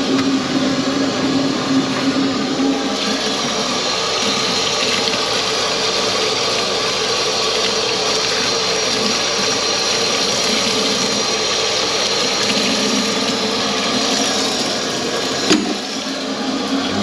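Kitchen faucet running a steady stream into a stainless steel sink while a wet rag is rinsed and wrung under it. The stream stops with a single sharp knock near the end.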